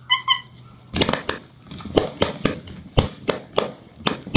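A small terrier bursting red latex balloons with its teeth one after another: a quick, irregular run of about ten sharp pops, starting about a second in.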